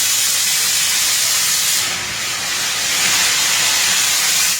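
Nickel Plate Road 587, a 2-8-2 steam locomotive, venting steam in a loud, steady hiss that dips briefly midway and cuts off suddenly at the end.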